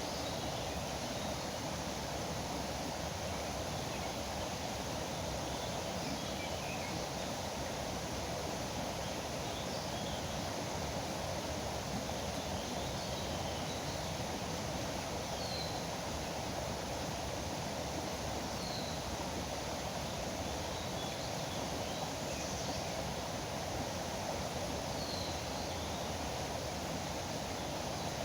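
A river flowing steadily, with faint short bird chirps every few seconds.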